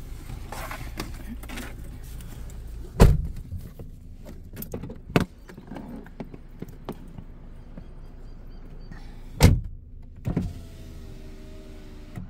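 Car doors being shut twice, two heavy thumps about six seconds apart, with smaller knocks and rustling between them, over the steady low hum of the idling car.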